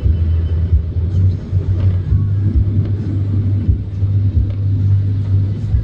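Car driving along a road, a steady low rumble of engine and road noise.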